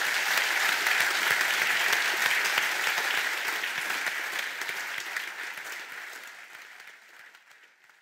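Audience applauding, a dense steady clapping that holds for about five seconds and then fades away gradually toward the end.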